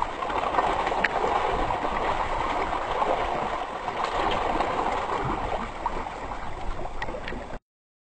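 Water splashing and churning steadily, with small knocks, as piranhas thrash at bait held at the surface on a line. It stops suddenly near the end.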